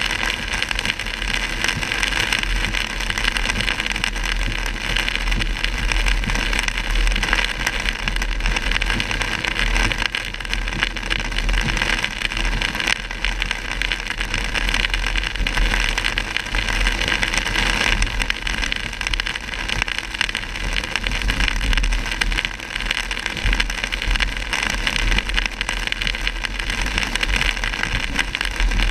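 A car driving on a wet road in heavy rain, heard from inside the cabin: a steady rumble of tyres and road noise with a hiss of rain and water spray.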